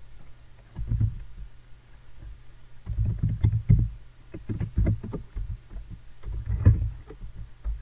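Typing on a computer keyboard: keystrokes in short bursty runs, each a click with a dull thud.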